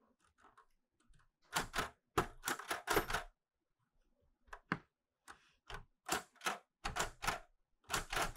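Clover 810S manual typewriter being typed on: its typebars strike the paper on the platen in quick, irregular runs of keystrokes with short pauses between.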